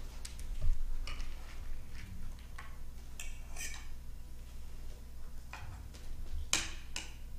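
A fork clinking and scraping against a plate as someone eats, in a handful of scattered short clicks, the loudest near the end.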